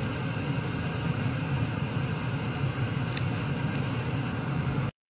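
A steady low rumble with no clear tone, which cuts off abruptly near the end.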